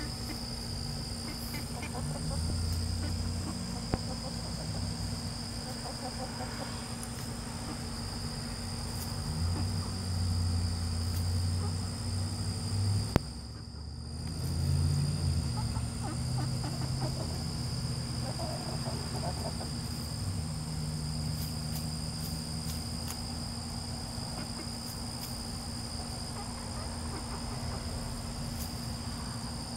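Steady high-pitched insect chorus with a low rumbling noise under it, and now and then soft chicken clucks. A sharp click comes about 13 seconds in.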